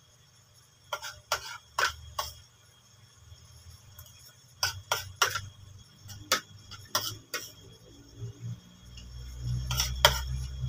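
Metal spoon and fork clinking against a ceramic plate: sharp single clinks in small groups of two to four, with a low rumble in the last couple of seconds.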